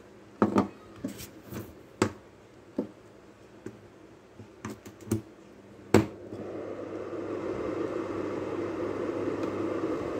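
Scattered clicks and knocks of the plastic fan housing being handled. Then a sharp click about six seconds in, and the SEKAI MVF 893 8-inch exhaust fan starts up: a steady rush of air and motor that builds over a couple of seconds and holds, smooth and not noisy.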